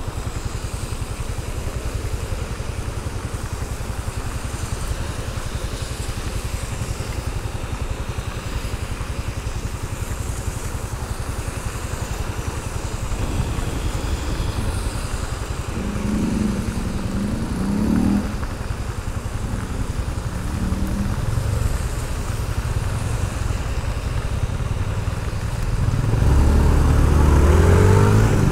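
Honda Pop 110i's small single-cylinder four-stroke engine running while the motorcycle is ridden. There are short rising revs a little past halfway and a louder, longer rev climb near the end as the bike accelerates.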